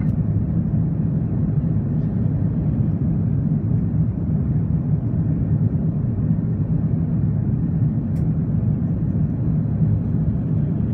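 Steady low cabin rumble inside an Airbus A330-203 climbing after takeoff: its two General Electric CF6-80E1 turbofans and the airflow past the fuselage, heard from a window seat over the wing. A faint click about eight seconds in.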